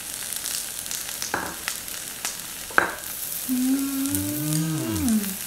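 Wagyu beef and vegetables sizzling steadily on a tabletop grill plate, with a few sharp clicks, the loudest about three seconds in. Near the end a voice hums a long 'mmm' of enjoyment that falls away at the close, with a second lower hum that rises and falls under it.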